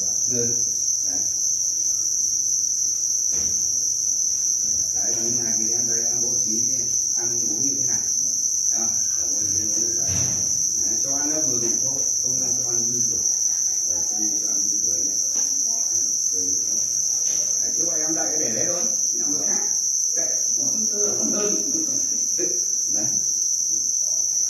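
A dense chorus of many farmed Thai black crickets chirping together in their rearing bins: one continuous, unbroken high-pitched trill at a steady level.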